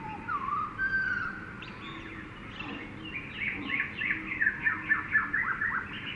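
Jungle ambience of several birds calling over a steady background hiss: a few gliding whistled notes early on, then a fast run of loud chirps from about halfway through.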